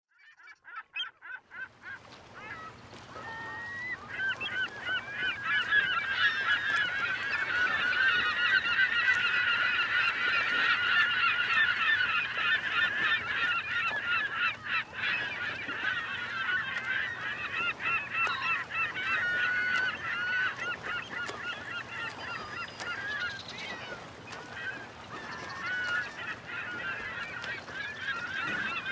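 A flock of many birds calling over one another in a dense chorus, building up over the first few seconds and thinning out in the second half.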